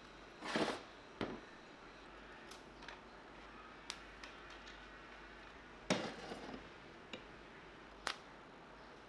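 Metal parts and tools being handled: a short scrape, then a handful of separate clicks and knocks a second or so apart, the loudest about two thirds of the way through.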